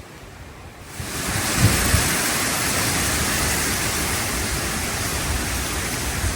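A strong hurricane wind gust sweeps in about a second in and keeps up a loud, steady rush, with a few low thuds of wind buffeting the microphone.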